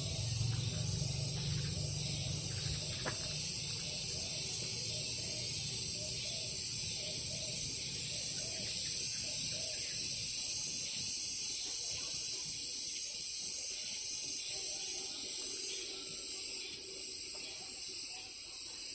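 Cicadas (tonggeret) singing: a high, shrill, continuous buzz that swells and fades in pulses as several insects call in turn and together.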